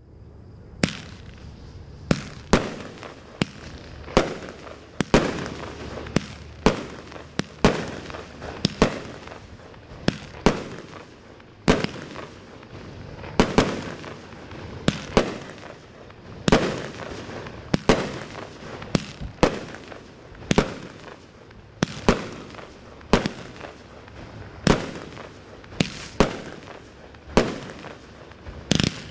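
A 500-gram, 25-shot consumer firework cake (Cutting Edge Fireworks' Holy Cow) firing: sharp bangs about once a second, unevenly spaced and sometimes in quick pairs, over a steady hiss between the shots.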